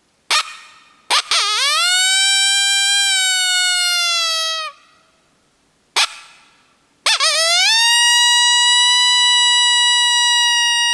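Open-reed coyote howler hand call blown to imitate a deep, raspy adult male coyote howl, used as a locator call. Two howls, each opening with a short sharp bark and then sliding up into a long held note; the first drops away after about three seconds, and the second is pitched higher and still sounding at the end.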